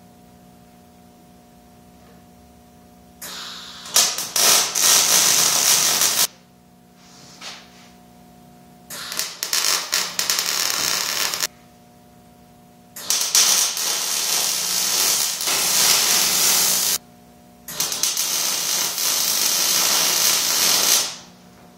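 MIG welder laying weld beads on a steel chassis frame: four runs of crackling arc, each a few seconds long, separated by short pauses. A steady low hum runs underneath throughout.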